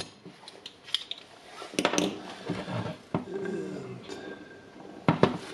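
A spring-loaded desoldering pump snaps as it fires on a solder joint of the battery's BMS board, followed by knocks, clicks and handling rattle as the lithium cell pack is picked up and turned over.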